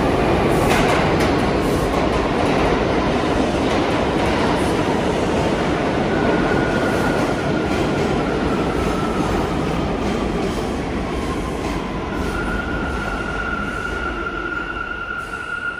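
New York City subway train running on its rails, a loud, dense rumble that slowly fades. A high steady metallic squeal comes in about six seconds in and grows stronger near the end.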